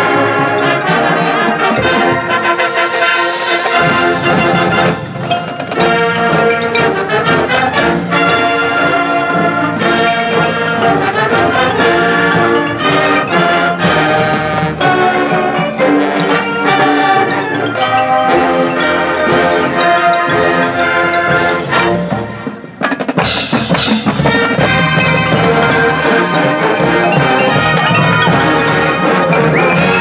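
High school marching band playing loudly: brass section with percussion. A little over two-thirds through the music drops out briefly, then the full band comes back in.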